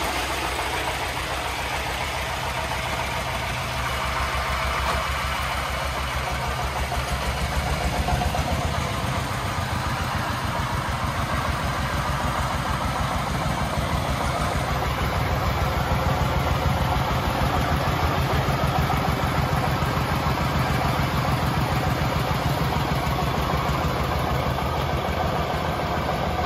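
Công nông three-wheeled tipper truck's 24 hp single-cylinder diesel engine running steadily with a fast, even chugging beat.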